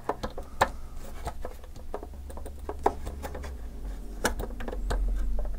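Scattered light clicks and taps of plastic and metal, a few of them sharper, as a laptop LCD panel is handled and laid into its display lid while its cable is held in place. A low steady hum runs underneath.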